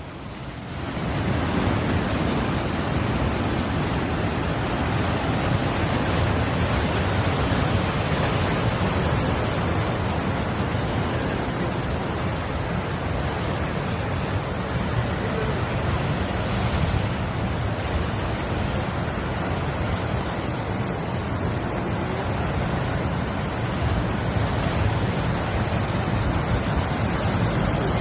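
Sea surf: a steady rushing of waves that fades in over the first second and swells gently now and then.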